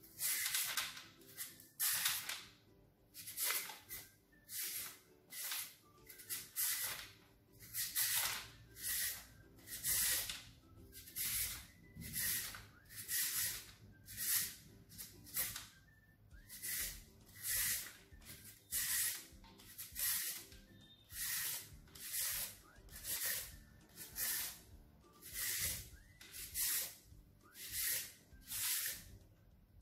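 Carrot being grated on a handheld metal grater: a steady run of rasping strokes, about one to two a second.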